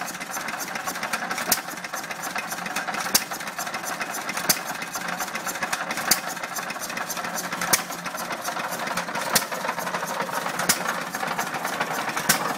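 Amanco hit-and-miss stationary engine running a belt-driven circular sawbench: a sharp bang from a firing stroke about every second and a half, with steady mechanical clatter between the firings as the flywheels coast.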